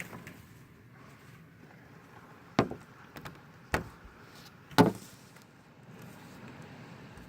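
Three sharp knocks about a second apart, over a faint steady background noise.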